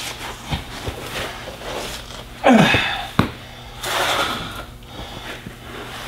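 Scattered clicks and rustling of hand tools working on a truck starter's wiring from underneath, over a steady low hum. About two and a half seconds in comes one louder, short sound that falls in pitch.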